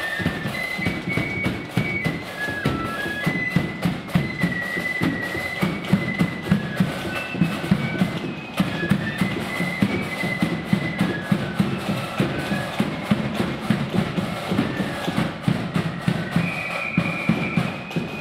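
Marching flute band playing a tune: a high, shrill flute melody in unison over steady snare and bass drum beats.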